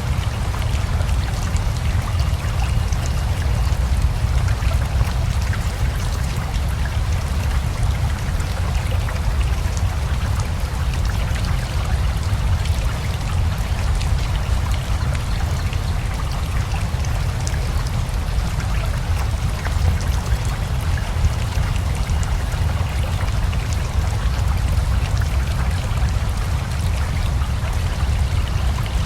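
Steady rain mixed with a flowing river, an even wash of water noise with a strong low rumble and fine drop ticks, unchanging throughout.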